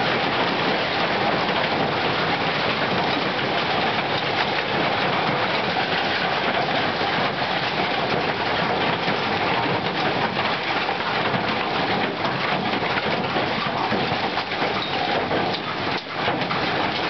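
A hailstorm: hail mixed with rain pelting down in a dense, steady hiss of impacts. Sharper single ticks grow more frequent over the last few seconds.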